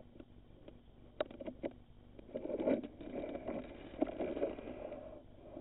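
Handling noise from a Teslong TD450S articulating borescope as its probe is worked around inside an engine cylinder, picked up by the scope's own built-in microphone: scattered clicks, then rustling and scraping for a few seconds from about halfway through.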